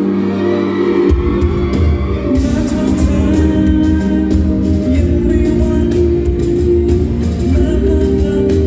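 Loud pop music over a concert hall's sound system: held chords, with a deep bass line coming in about a second in and a drum beat about two and a half seconds in.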